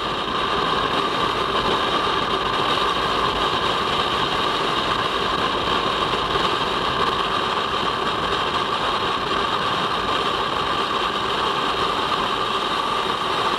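Kawasaki Versys-X 250 Tourer's parallel-twin engine running steadily at cruising speed on the highway, mixed with wind and road noise.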